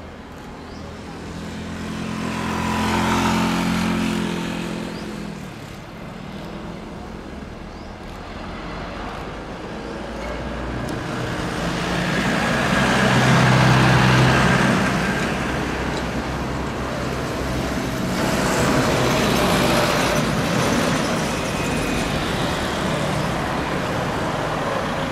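Jet engines of a SriLankan Airlines Airbus A320-family airliner landing. The engine noise swells as it flies past on final approach, grows loudest with a faint steady whine around touchdown, and surges again as the jet slows on the runway.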